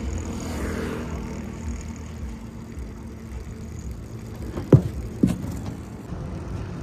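Diesel engine idling with a steady low rumble, with two sharp knocks about half a second apart near the end.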